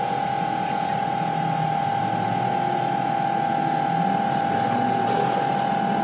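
Background music over a steady mechanical hum and hiss with a constant whine, from an air-compressor spray-painting rig as a gravity-feed spray gun sprays primer on a steel frame.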